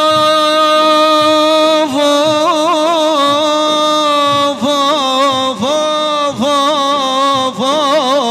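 Male voice singing a manqaba, a sung praise of the Prophet, without words: one long held note for about two seconds, then wavering, ornamented runs that break off and start again every second or so.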